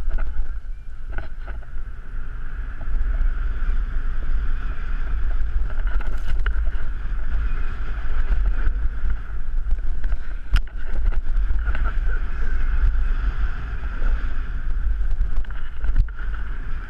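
Wind rumbling over a moving action camera's microphone and the steady rush of sliding over snow as the wearer rides fast down a ski slope, with a few sharp clicks.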